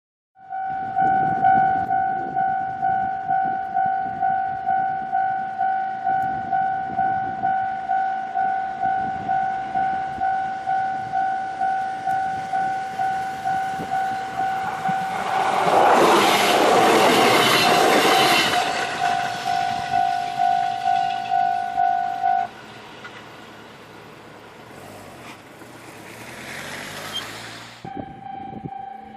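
Japanese level-crossing warning bell ringing in a steady pulse about twice a second while a 701 series electric train passes. The train's wheels and running noise swell to their loudest midway. The bell stops a few seconds later, the train fades, and a crossing bell starts again near the end.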